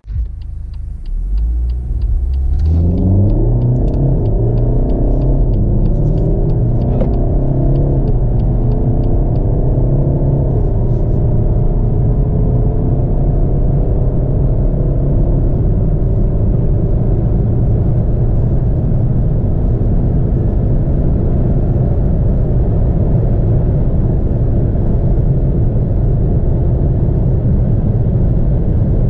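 2017 BMW 120d's 2.0-litre four-cylinder turbodiesel under full-throttle acceleration, heard from inside the cabin. The note surges about two and a half seconds in and rises in pitch through the lower gears, dropping at each automatic upshift, then settles into a steady loud mix of engine and road noise at high speed.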